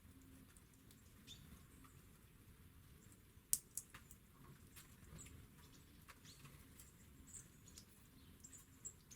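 Faint, short high chirps of small songbirds scattered throughout, with a few sharp clicks, the loudest two close together about three and a half seconds in.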